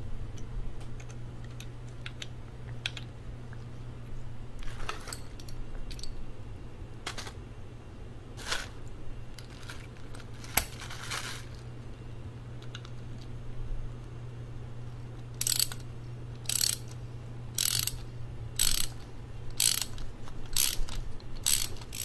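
Hand socket ratchet wrench clicking as bolts are turned in. The clicks are scattered at first, then from about two-thirds of the way through come as steady ratchet strokes about one a second. A steady low hum runs underneath.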